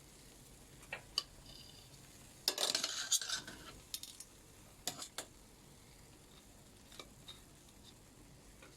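Cooking utensil clicking and scraping against a frying pan while pancakes fry, with scattered sharp clicks and a louder burst of scraping and sizzle about two and a half seconds in, lasting about a second.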